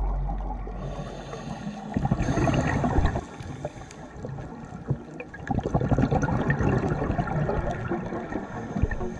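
Underwater sound through a dive camera's housing: a scuba regulator's exhaled bubbles rushing and gurgling in two bursts, a short one about two seconds in and a longer one from about halfway to near the end.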